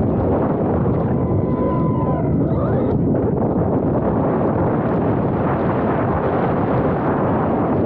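Team Corally Sketer electric RC truck driving fast across asphalt, heard from its onboard camera: heavy wind rush on the microphone and tyre noise on the pavement. A faint motor whine holds steady for about a second, then bends up and down as the throttle changes.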